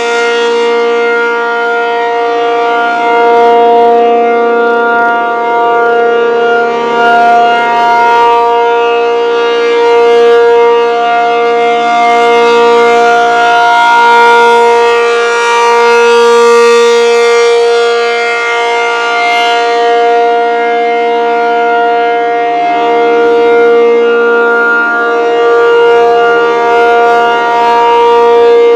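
ASC T-135 AC-powered outdoor warning siren sounding its full alert: a loud, steady tone with no rise or fall in pitch, swelling and fading in loudness every few seconds as the rotating head sweeps past.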